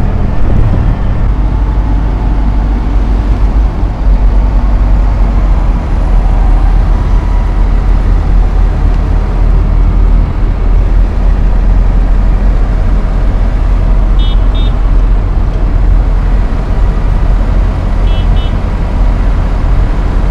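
A procession of diesel farm tractors driving slowly past at close range, a steady, loud, low engine rumble; a Fendt Favorit 712 Vario passes closest. Two short high beeps sound in the second half.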